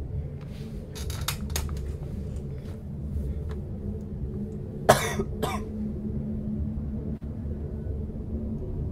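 A person coughing twice about five seconds in, the first cough the louder, over a steady low hum; a few faint clicks about a second in.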